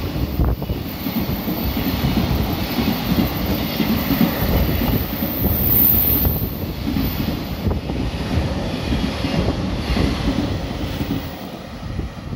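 Container wagons of a freight train passing close at speed: a steady rumble and clatter of wheels over the rails, falling away near the end as the last wagon goes by.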